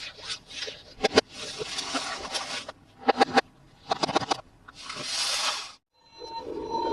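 Plastic toy packaging and toy parts being handled: rustling and scraping with clusters of sharp clicks. It goes quiet for a moment near the end, then a battery-powered toy's electronic sound effect starts with steady beeping tones.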